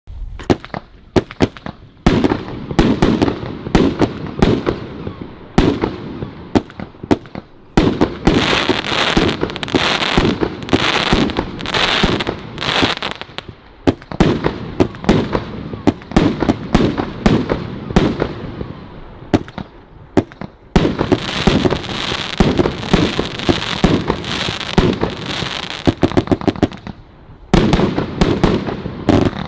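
Nightstar 'King Kong' firework going off: a dense, fast run of cracks and bangs in repeated volleys, starting suddenly and easing off briefly several times between waves.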